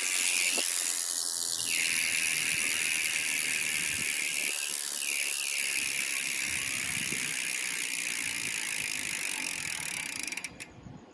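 Novatec rear bicycle hub freewheeling: the freehub pawls make a fast, continuous high-pitched ratcheting buzz as the wheel spins. The buzz cuts off suddenly near the end.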